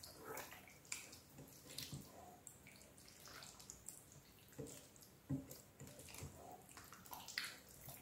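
A black slotted plastic spoon stirring sliced sausages in tomato sauce in a pot: faint, irregular wet squelches and soft scrapes, one a little louder about five seconds in.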